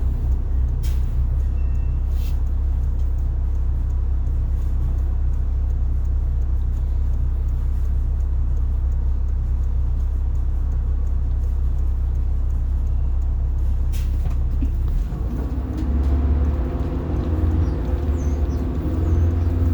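Rear-mounted diesel engine of a 1990 Blue Bird All American school bus running, heard from inside the bus as a steady low drone. About fifteen seconds in the engine note changes and grows louder, with higher tones coming in as it picks up revs. A few sharp clicks come in the first couple of seconds and again about fourteen seconds in.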